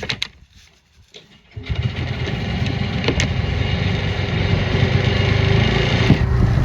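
Boat's outboard motor starting up after a quiet pause, catching about one and a half seconds in and then running steadily.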